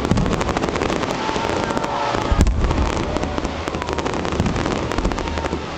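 Fireworks display: dense, continuous crackling from many small bursts, with deep booms of larger shells, the heaviest about two and a half seconds in.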